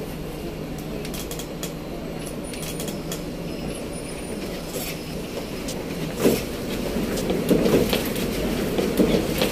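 Singapore MRT train running: a steady rumble with a constant low hum and scattered clicks, growing louder with clattering knocks from about six seconds in.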